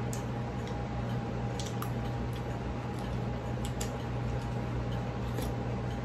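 A metal spoon clicking and scraping lightly against a ceramic plate and bowl while eating, several short taps, over a steady low hum.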